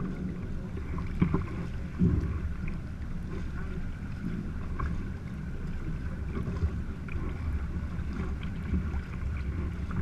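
Kayak on the water, with wind buffeting the microphone as a steady low rumble and a few sharp knocks, the clearest about one and two seconds in.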